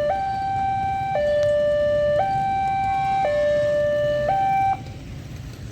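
Two-tone siren alternating between a higher and a lower note about once a second, cutting off abruptly near the end.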